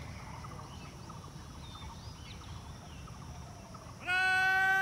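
Quiet open-air background with a few faint bird chirps, then near the end a loud, long-held drawn-out word of command from a man's voice over a loudspeaker begins suddenly.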